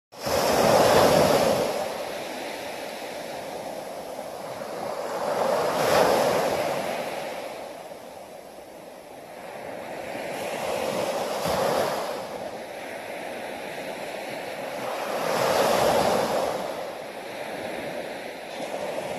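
Small waves breaking on a sandy beach and washing up the shore, the surf swelling about every five seconds.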